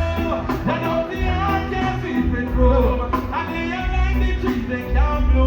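Live reggae band playing, with a heavy bass line under a sung melody.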